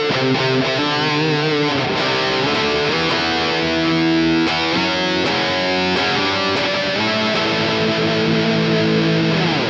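Distorted electric guitar, a Gibson Les Paul through an Engl Fireball 25 amp, playing held chords and notes with reverb and delay from an Earthquaker Devices Dispatch Master pedal. The playing stops at the very end.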